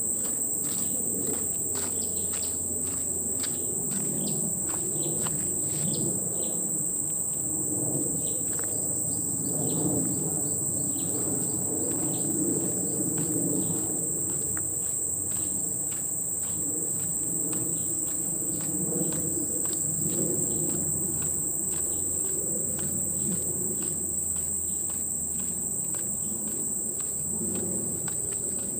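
A steady, high-pitched insect drone with no break, over regular footsteps on a dirt track.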